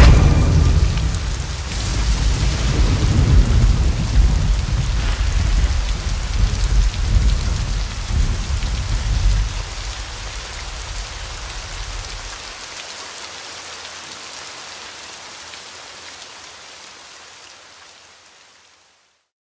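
Heavy rain pouring, with a long rolling rumble of thunder that dies away about halfway through. The rain then fades out gradually and stops just before the end.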